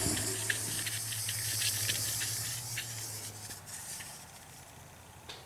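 Light clicking and rattling from a hand-held chalk line reel being handled while its line hangs as a plumb line, over a steady hiss and a low hum; the hum stops a little past halfway and the sound fades toward the end.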